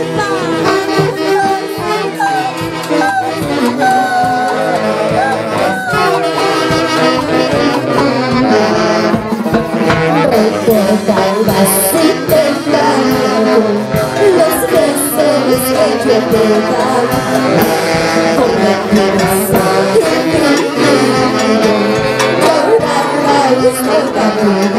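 A live Andean festive saxophone band playing with a drum, while a woman sings into a microphone over it.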